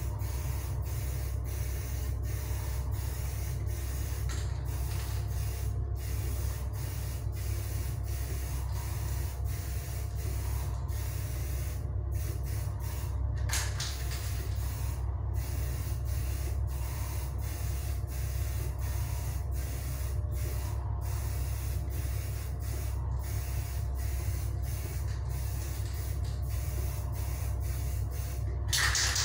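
Aerosol spray can of 1K lacquer hissing in repeated passes with short breaks between them, over a steady low hum.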